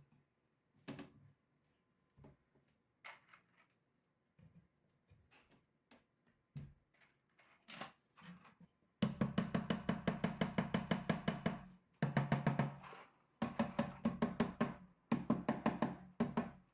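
A few faint clicks as wooden dowels are pushed into the shelf-pin holes of a particleboard cabinet. About nine seconds in comes a rapid run of hollow wooden knocks, roughly seven a second, broken by short pauses, with the empty cabinet resonating.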